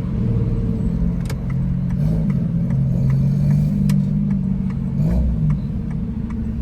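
A car engine running steadily under way, with a low drone that shifts pitch slightly about two seconds and five seconds in. Faint light ticks come about three times a second.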